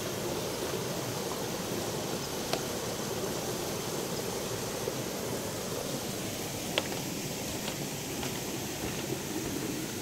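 Rocky jungle stream flowing over small cascades, a steady wash of water. Two short sharp clicks stand out, one about two and a half seconds in and one near seven seconds.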